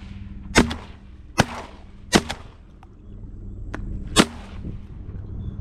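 Shotgun shots fired at flying teal: four loud blasts spaced roughly a second apart over about four seconds, each trailing off in an echo, with a couple of fainter reports in between.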